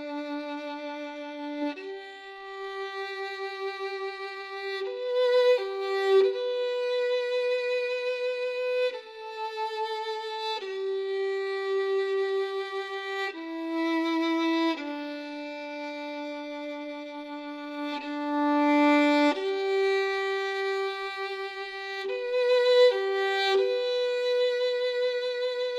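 Background music: a solo violin playing a slow melody of long, held notes with vibrato, broken by a few quicker notes.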